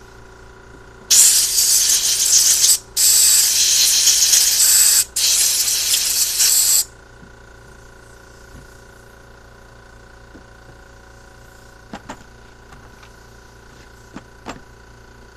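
Compressed-air blow gun on an air hose blasting into a carburetor in three loud bursts of hiss, blowing dirt out of its passages. A few faint clicks follow near the end.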